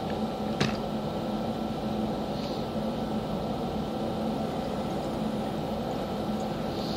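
H180 water-electrolysis oxy-hydrogen generator running with a steady hum and hiss while it feeds the polishing torch. One light click just over half a second in.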